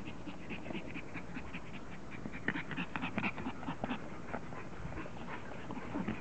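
English bulldog puppies panting as they play, a rapid run of short breaths that comes thickest around the middle.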